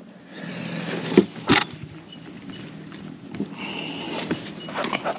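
Scattered clicks, knocks and light rattles of gear being handled on a bass-boat deck, right after a bass is landed, over a steady low hum.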